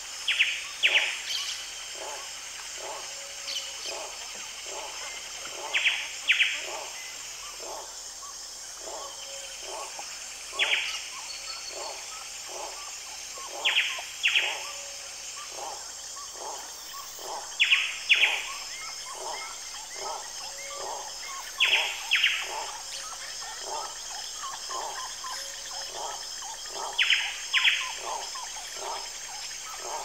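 Amazon rainforest soundscape: a bird repeatedly gives loud, short double calls, a pair about every four seconds, over a steady high-pitched insect drone and a constant patter of softer, lower chirps about twice a second.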